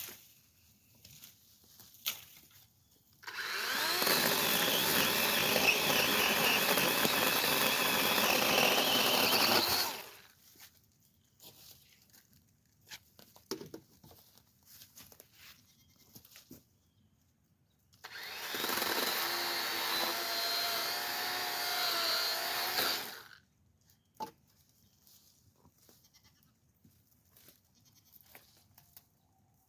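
A power tool runs in two bursts, about seven seconds and then about five seconds, starting and stopping abruptly, with faint knocks and clicks in the quiet between.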